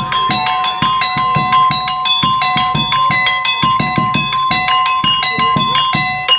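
Topeng monyet (street monkey-show) accompaniment played on a one-man rig of small tuned metal pieces and a bass drum. A quick, even run of ringing metal notes over low drum beats, about five or six strikes a second, in a repeating pattern.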